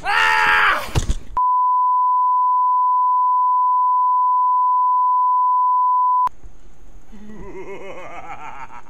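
A loud shrill cry for about a second, cut off by a steady 1 kHz test tone, the kind played with colour bars, which holds for about five seconds and stops abruptly. After it come fainter rising, wavering tones.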